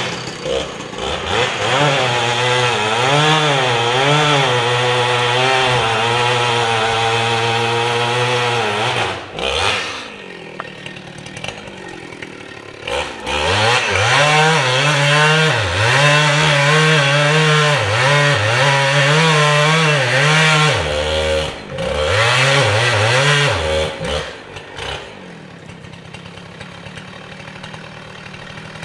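Chainsaw cutting into the base of a red fir snag to fell it, the engine labouring under load with its pitch wavering up and down. It drops back out of the cut twice along the way and falls to a quieter run near the end.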